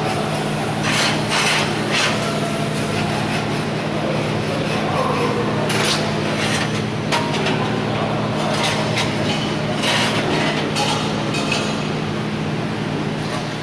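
Welding workshop noise: a steady electrical hum under a noisy clatter, with scattered sharp metal knocks like hammering.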